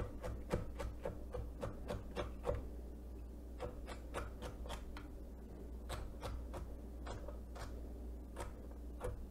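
Chef's knife chopping celery on a wooden cutting board: quick, even knocks of the blade on the board, about four a second, then slower and more spaced out from about three seconds in.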